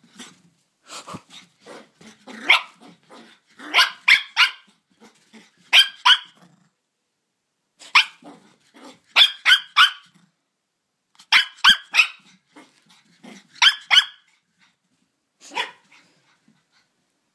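Blenheim Cavalier King Charles Spaniel puppy barking, in quick runs of two or three sharp barks every couple of seconds.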